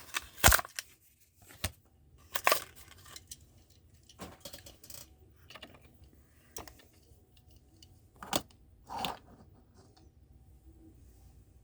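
Scattered sharp clicks, taps and short plastic crinkles from handling a carded Hot Wheels die-cast car and its blister pack, with quiet gaps between them; the loudest click comes about half a second in.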